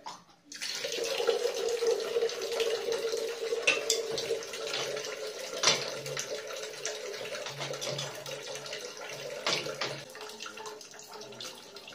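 Water running steadily, like a tap left on, starting about half a second in. A few sharp metal clicks come from a pipe wrench on threaded pipe fittings.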